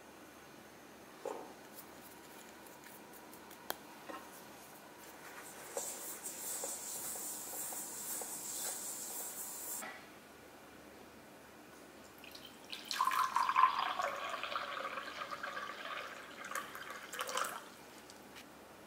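Water poured into a glass measuring cup, splashing for about five seconds. Earlier there is a soft, steady hiss for about four seconds, with a few light taps before it.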